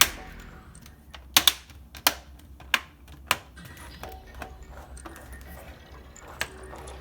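Plastic laptop screen bezel being pressed back on, its clips snapping into place with about five sharp clicks spread through the stretch, over background music.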